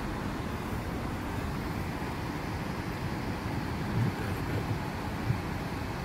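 Steady low rumble of a car's cabin while driving on a snow-covered road, engine and tyre noise, with a soft bump about four seconds in and a single sharp click a little after five seconds.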